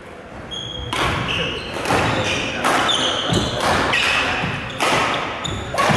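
Badminton rally: rackets striking the shuttlecock about once a second, with sneakers squeaking and footfalls on the court floor. The strokes start about a second in.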